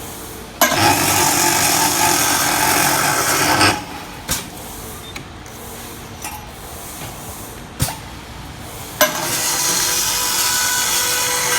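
An automatic stainless-steel cutting machine makes two cutting passes of about three seconds each, starting about half a second in and again about nine seconds in. Each pass starts suddenly with a loud hiss, and the machine is quieter in between, with a few sharp clicks.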